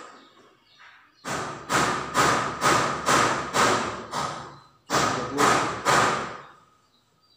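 Heavy, evenly spaced thumping beat, about two thumps a second, played back from a phone, with a short break about two-thirds of the way through before three more thumps.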